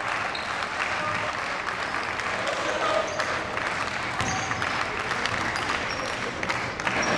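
Scattered applause and a hum of voices in a large, sparsely filled sports hall, with a few sharp knocks.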